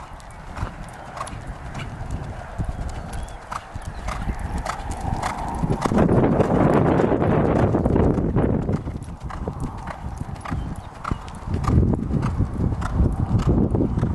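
Horse's hoofbeats at a lope, a steady three-beat canter rhythm of strides about every two-thirds of a second. A louder rumbling noise swells for a couple of seconds about six seconds in and again near the end.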